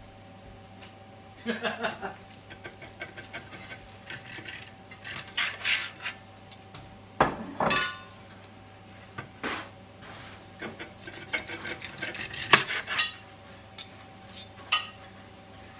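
Serrated bread knife and carving fork scraping and clinking against a stainless-steel platter as cooked pork is sliced, in irregular strokes, two of them with a short metallic ring.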